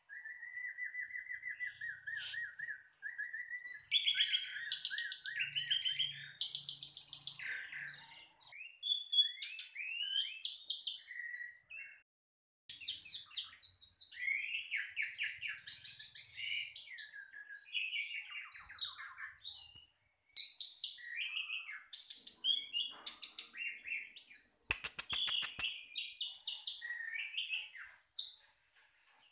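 A bird singing a long, varied song of chirps, trills and whistles that breaks off briefly twice, with a quick burst of rapid clicks a little before the end.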